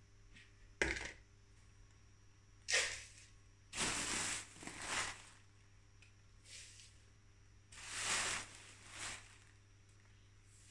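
Pre-milled brewing grain scooped from a cloth sack and poured into a plastic bowl on a kitchen scale: several rustling pours, each about a second long, with a sharp knock about a second in as the bowl is set down.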